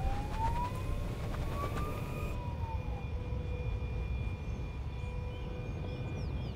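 Zero SR/F electric motorcycle's motor whine rising in pitch for about two seconds as the bike gathers speed, over a steady low rumble of wind and road noise. Fainter steady whine tones carry on after the rise ends.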